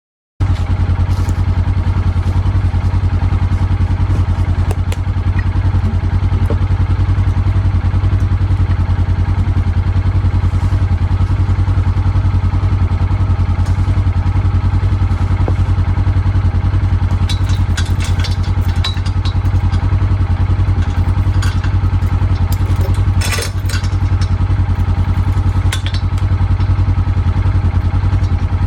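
Small gasoline engine of a Central Machinery bandsaw mill running steadily at constant speed with a low, even hum, as it does while sawing a maple log. A few short clatters come about two-thirds of the way through.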